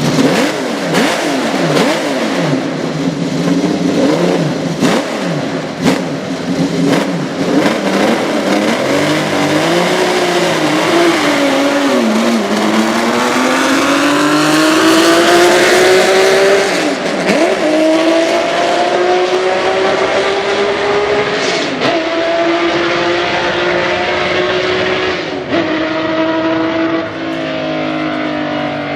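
Honda RA301's V12 racing engine running hard. Its pitch wavers up and down for the first twelve seconds, with several sharp cracks, then climbs for a long stretch and drops suddenly three times, at each upshift.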